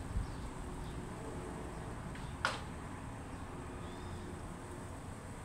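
Outdoor ambience with a steady low wind rumble on the microphone. About two and a half seconds in, one brief sharp chirp falls quickly in pitch.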